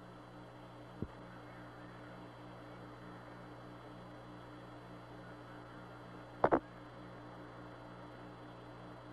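Steady electrical hum and hiss of the Apollo 11 lunar-surface radio and TV downlink between transmissions. There is a small click about a second in and a short, sharp crackle about six and a half seconds in.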